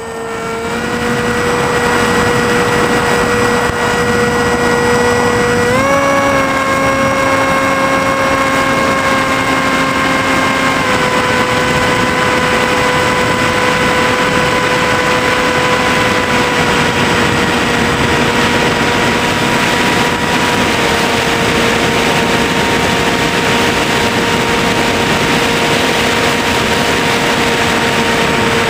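A small electric RC airplane's motor and propeller whining steadily in flight, heard from a camera carried on board, with wind rushing past. The whine steps up in pitch about six seconds in, drops back about eleven seconds in, then slowly sinks lower.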